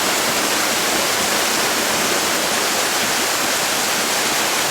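Waterfall pouring down: a steady, loud rush of falling water with no breaks.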